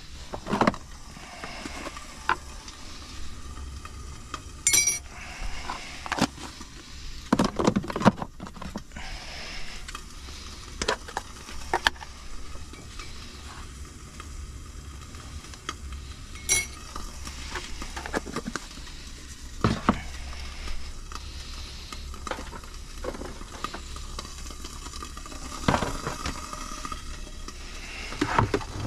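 Eggs and sausages sizzling in a frying pan, with a dozen or so sharp clinks and knocks of a utensil against the pan at uneven intervals.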